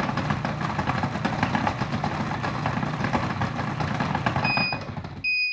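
Breville Sous Chef 16 Peel & Dice food processor running with golden beets tumbling against its peeling disc, a dense steady motor-and-rattle noise. Near the end it beeps twice as its 25-second timer runs out, and the motor cuts off suddenly.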